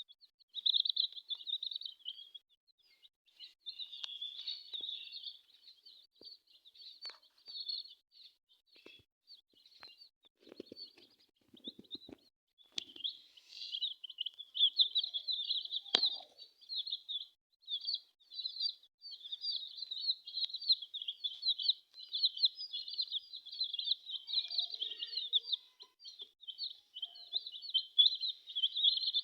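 A group of baby chicks cheeping: many short, high peeps overlapping. They thin out for a stretch in the middle, then grow thick and continuous again.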